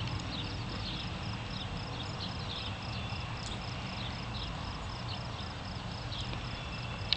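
Steady low rumble with a rapid, evenly repeated high chirping and short chirping calls over it, the sound of small animals calling outdoors. A single sharp click comes near the end.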